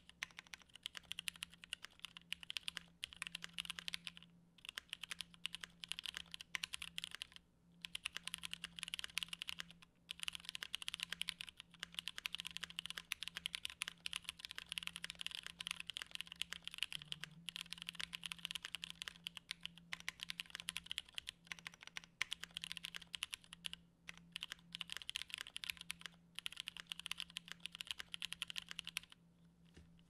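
Fast continuous typing on a Tofu60 mechanical keyboard with stock Cotton Candy switches, a polycarbonate plate and GMK keycaps, modded with o-rings, tape and a silicone dampener. It is a dense patter of key clacks, broken by a few short pauses.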